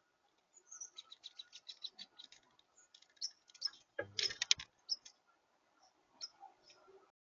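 Birds at a birdcam feeder: a rapid run of short, sharp chirps and pecking clicks, densest and loudest about four seconds in, where a low thump comes first.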